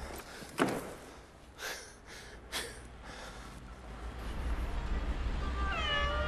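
A door shuts with a sharp thud about half a second in, followed by two softer knocks. Near the end a kitten starts meowing.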